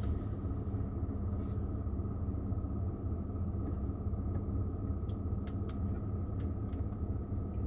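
Truck engine idling steadily, a low even rumble heard from inside the cab, with a few faint clicks scattered through.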